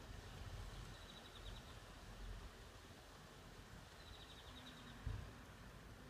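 Faint outdoor ambience with two short, high, rapid trills, a brief faint low tone about four and a half seconds in, and a soft low thump just after it.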